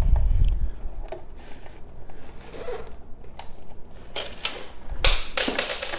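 Hands working wires and small screws into a 3D printer's MOSFET board terminals. A low thump of handling at the start, scattered small clicks, then a stretch of scraping and rustling near the end.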